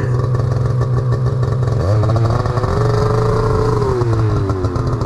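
Snowmobile engine running steadily, then revved hard about two seconds in. Its pitch rises and holds, sags, then dips and climbs again near the end, as the sled is worked while stuck in slush.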